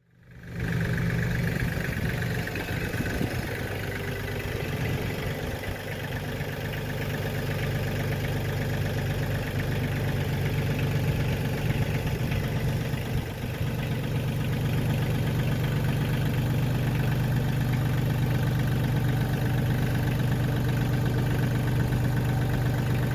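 A motor running steadily.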